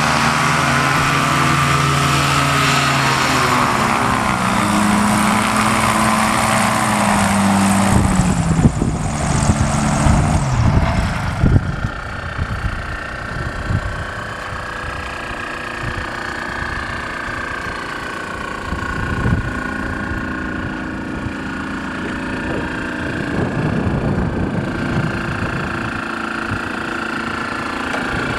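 Microlight aircraft's engine and propeller running close by. The engine note drops in pitch over the first few seconds, rough buffeting noise comes and goes about a third of the way in, then the engine settles to a steadier, quieter idle.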